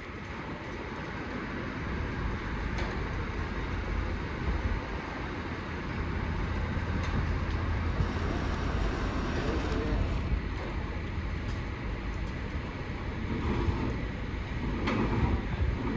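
Steady low rumble of engines and road traffic, with a few faint clicks and distant voices.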